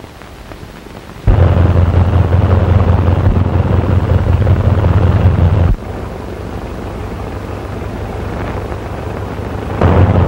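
Biplane engine drone on an early sound-film soundtrack, steady and noisy with a heavy low rumble. It comes in loud about a second in, falls to a lower level around the middle, and swells loud again near the end.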